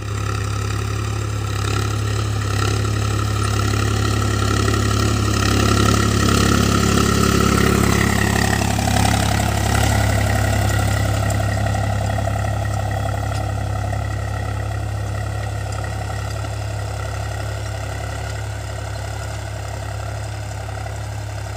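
Swaraj tractor's diesel engine running steadily as it pulls a tillage implement through a field, its note shifting about halfway through.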